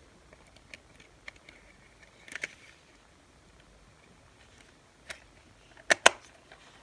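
Light plastic clicks and taps from handling Kato model passenger cars, with a small cluster of clicks partway through and two sharp clicks in quick succession near the end.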